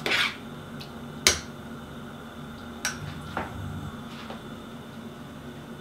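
Metal spoon scraping and clinking against a stainless steel soup pot. There is a sharp tap about a second in and a couple of fainter clicks later.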